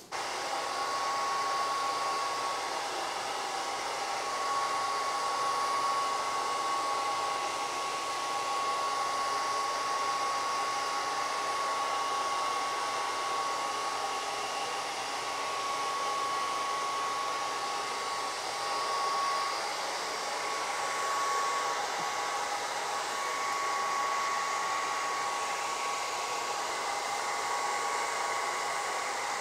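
Handheld hair dryer blowing steadily with a constant whine, aimed at window film to soften its adhesive so it peels off the glass.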